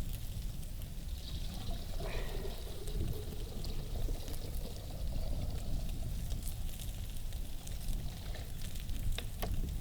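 Liquid being poured, over a steady low rumble, with two sharp clicks near the end.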